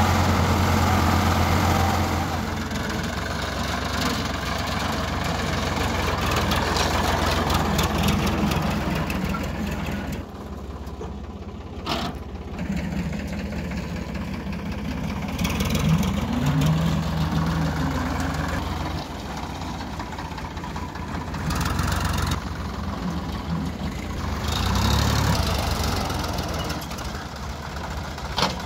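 Sonalika farm tractors' diesel engines idling and running, a steady low drone that swells and dips in level. There is one sharp click about twelve seconds in.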